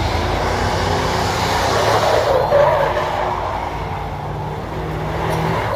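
Lifted pickup truck doing a burnout: the engine is held at high revs while the rear tyres spin and squeal on the asphalt. The tyre noise is loudest about halfway through.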